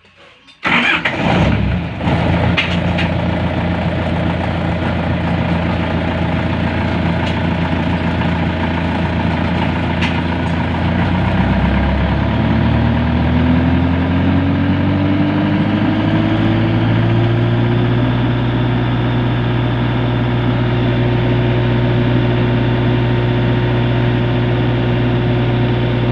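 Generator engine starts about a second in and keeps running, now that its control module has been replaced. Its pitch climbs over several seconds as it comes up to speed, then holds steady.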